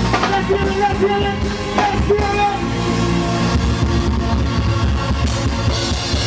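Band music: drum kit and bass beneath a sung melody line, which thins out about halfway through.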